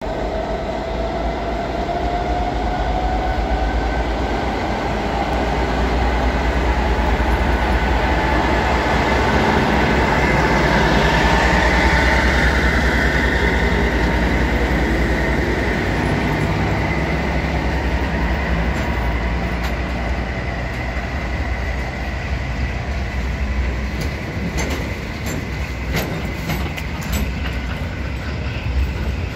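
Class 241 'Ludmilla' diesel locomotive running under load as it hauls a heavy timber train past, its whine rising in pitch and loudest as the locomotive goes by about halfway through. Then the laden log wagons roll past with a low rumble and a run of sharp clicks from the wheels over rail joints.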